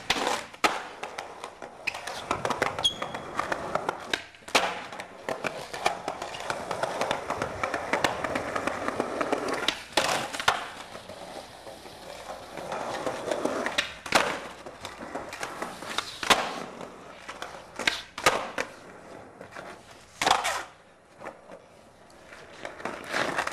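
Skateboard wheels rolling on concrete, with several sharp clacks of the board striking the ground as tricks are popped and landed.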